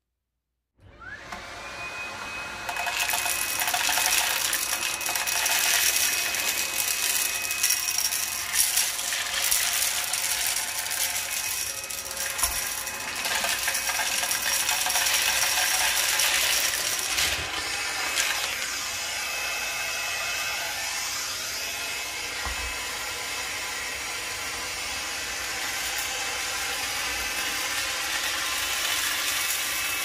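Dreame T20 cordless stick vacuum starting up, its motor whine rising about a second in and then running steadily with a suction hiss. Hard debris (candies and plastic beads) clicks and rattles as it is sucked up the wand.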